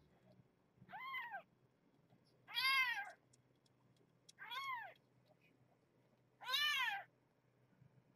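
Newborn kitten crying four times, about two seconds apart, each cry a high, thin meow that rises then falls in pitch.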